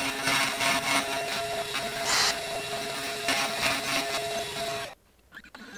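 3018 mini CNC router running: its small spindle motor whines steadily while the bit mills into end-grain hardwood, with the stepper motors moving the gantry. The machine sound stops suddenly about five seconds in.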